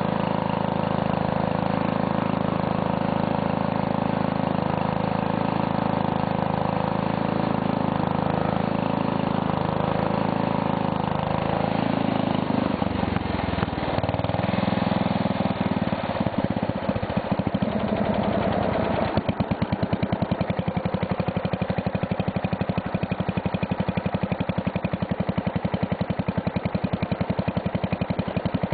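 Single-cylinder 9 hp Briggs & Stratton engine on an old Simplicity garden tractor, running steadily under way. Partway through its sound changes, and for the last third it idles with each firing pulse plainly separate.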